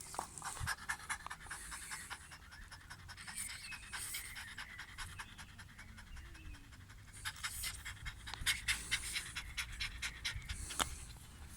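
Young dog panting rapidly from the exertion of playing ball, in two spells with a quieter lull about halfway through.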